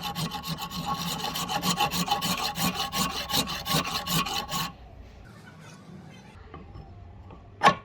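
Fast, even back-and-forth rasping strokes of a hand tool on wood, about five a second, which stop about two-thirds of the way through. A single sharp knock near the end is the loudest sound.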